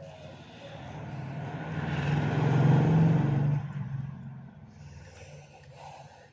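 A motor vehicle passing by. Its engine hum and road noise rise to a peak around the middle and then fade away.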